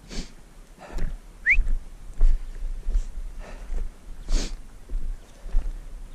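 Footsteps over stony ground with the thumping and rustle of a body-worn camera as the hunter walks, and a single short rising whistle about one and a half seconds in.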